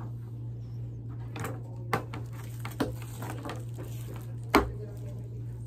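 A charging cord being wiped down and handled on a table: a few sharp knocks and clicks, the loudest about four and a half seconds in, over a steady low hum.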